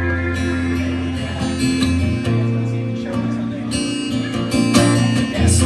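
Live guitar music: an acoustic guitar strumming chords in an instrumental intro, with held low notes underneath.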